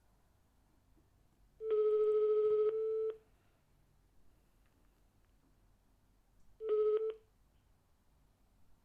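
Telephone ringback tone heard through a phone's loudspeaker while an outgoing call rings. A steady tone sounds for about a second and a half, then again about five seconds later, cut short after half a second as the call is picked up.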